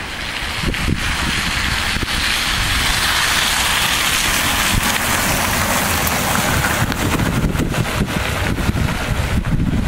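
Wind rumbling on the microphone, with the hiss of tyres on a wet, slushy street that swells through the middle and fades after about seven seconds, as a vehicle passes.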